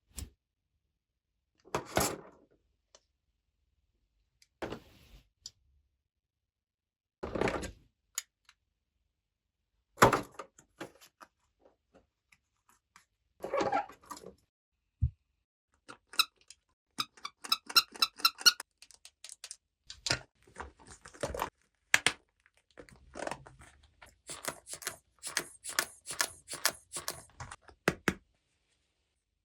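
Small plastic toy pieces clicking, tapping and rattling as they are handled and set down, in scattered knocks at first and quick runs of clicks in the last third.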